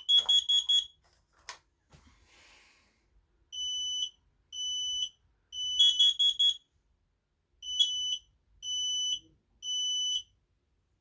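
Household smoke alarms beeping at high pitch. One sounds three long beeps, a pause, then three more: the temporal-three fire evacuation signal. Another gives quick sets of four short beeps, the carbon monoxide alarm pattern, at the start and again about six seconds in.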